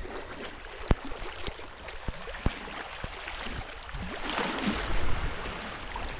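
Sea water lapping and washing around rocks at the shoreline, with a louder wash about four seconds in. Scattered sharp clicks and knocks through the first half.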